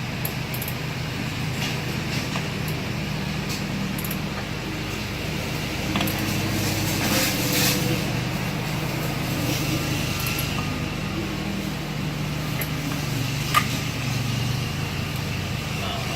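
Steady low mechanical hum, with a few light clicks and taps.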